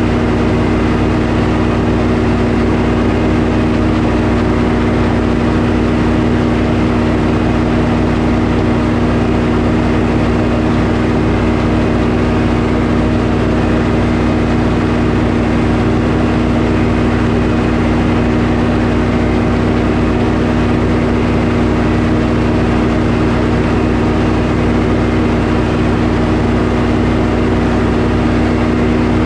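Sawmill's engine running steadily at a constant speed, with no change in pitch or level.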